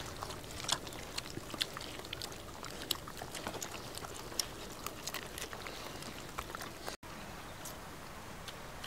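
Several dogs chewing boiled fish, with scattered sharp crunches and clicks as they bite through the pieces.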